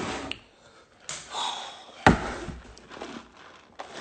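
Handling noises and rustling, with one sharp knock about two seconds in and a few lighter knocks near the end.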